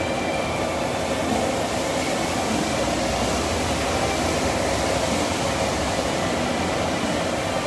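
Steady droning ventilation noise, even throughout with no distinct events.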